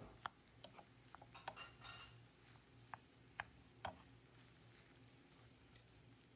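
Wooden spatula tapping and scraping against a pan as cooked rice is stirred: a few light knocks spread through, with a short scrape about a second and a half in.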